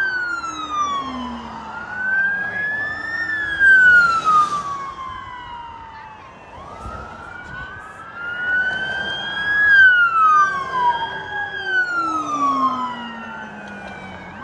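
Several police car sirens wailing at once, each tone slowly rising and falling and overlapping the others, with a lower-pitched tone sliding down beneath them. They are loudest near the start, about four seconds in, and about ten seconds in.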